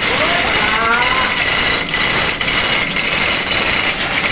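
Steady, loud engine-room machinery noise with a constant high whine. About half a second in, a man gives a short, rising drawn-out call over it.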